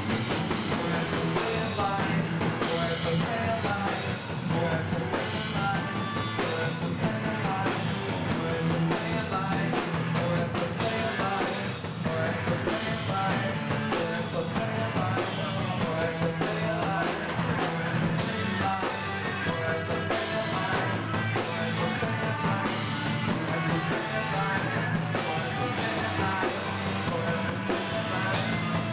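Live rock band playing: electric guitar and a drum kit with cymbals, with a singer's vocals.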